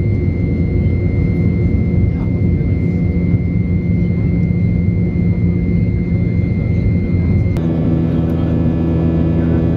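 Boeing 737 jet engines and airflow heard inside the cabin during the climb after takeoff: a loud, steady drone with a steady high whine. Near the end the whine stops suddenly and the hum takes on a different set of tones.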